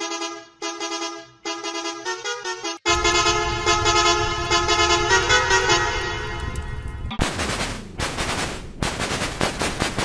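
Volvo bus horn sound effect played in digitally altered versions one after another: first as short repeated horn blasts, then from about three seconds in with a heavy, distorted bass rumble under the horn tones, and from about seven seconds in as harsh, noisy distorted bursts.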